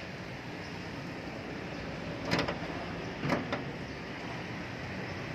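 Two short clunks about a second apart over a steady background hum, as the hood of a Toyota Prius is being released for opening.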